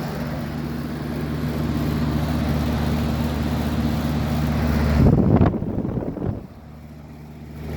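An old air conditioner resembling a Bryant Tech 2000 running, with a steady low compressor hum under the rush of its fan. About five seconds in, a loud low rumble; the sound then drops quieter for a moment and comes back near the end.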